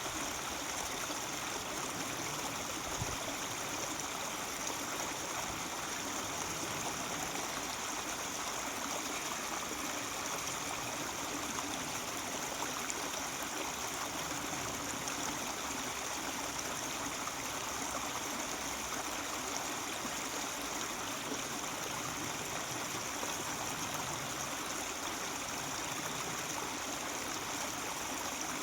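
Mountain stream babbling and trickling steadily over rocks, an even rush of water with no change in level.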